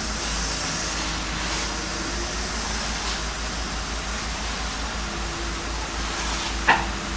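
Doosan DX225LCA excavator's diesel engine running steadily with a hiss over it, a steady low hum joining about five seconds in. A sharp knock near the end.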